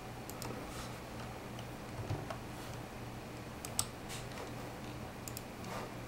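Low, steady hum of the ASUS HD6670 video card's 80 mm cooling fan running at low speed, around 40–45%, with ambient PC fan noise under it. About a dozen light, scattered clicks of computer input come on top as the fan speed is set.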